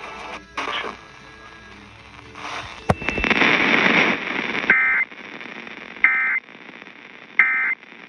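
Eton portable radio being tuned to an FM station: a click, then a loud stretch of hiss. Then three short, identical bursts of warbling digital data tone, the EAS SAME header that opens a Required Monthly Test.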